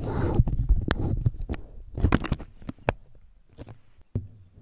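Handling noise: rustling and a run of sharp clicks and knocks, loudest in the first second, with another cluster of clicks about two seconds in and a single knock near the end, as the camera is held and moved close to the body.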